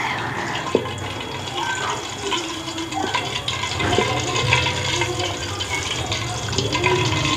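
Steady rushing, water-like noise with a low hum, and a few light knocks of a wooden spoon in a steel pot.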